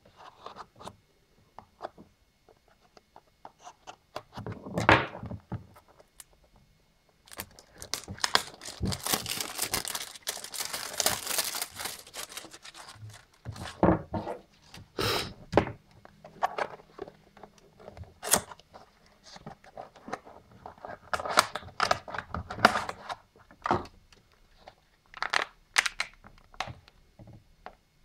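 A small cardboard box being torn open by hand and the plastic packaging inside crinkled, in irregular rustles with scattered sharp clicks and knocks; the longest, loudest tearing comes about a third of the way in.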